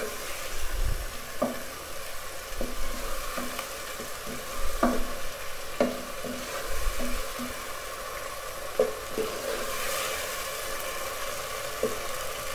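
Onion-and-tomato masala sizzling in ghee in a nonstick pot while a wooden spatula stirs and scrapes through it, with repeated short scrapes over a steady sizzle. This is the masala being fried down (bhuna) with its spices.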